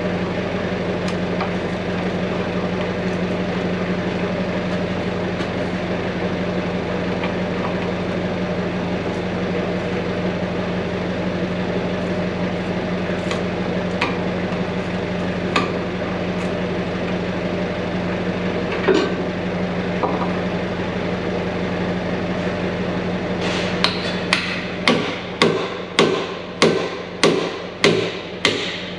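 Hand tools on steel under a John Deere 650H dozer: a few scattered metallic clinks of a wrench on a bolt, then near the end a hammer striking the C-frame mounting in quick repeated blows, a little under two a second, over a steady low hum.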